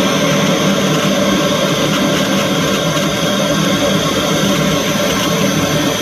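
Loud, steady hiss of untuned FM static playing through a Sony MHC-V7D party speaker, cutting off suddenly right at the end. It shows the amplifier is putting out sound again after its no-sound and protect fault was repaired.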